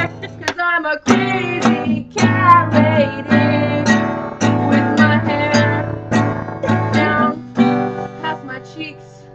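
Acoustic guitar strummed in a steady rhythm, with a girl's voice singing along over it. The strumming grows softer near the end.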